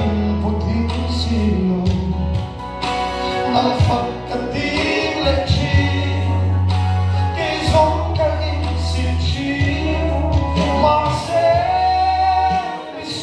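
A man singing a Mizo gospel song into a microphone, amplified through a PA, over instrumental accompaniment with long held bass notes.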